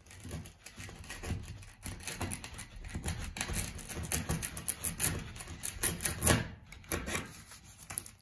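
Wood chisel chipping and scraping at a plywood bulkhead in quick, irregular strokes, paring away the outer layer of plywood to leave a recess for fibreglass tabbing.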